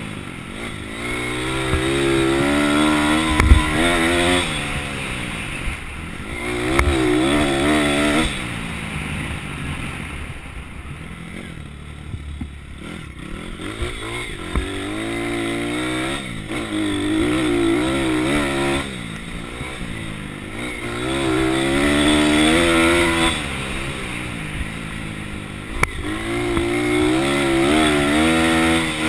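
Pit bike's small single-cylinder engine revving up and dropping back again and again while riding, with a quieter stretch of low revs about halfway through. A sharp thump comes about three and a half seconds in.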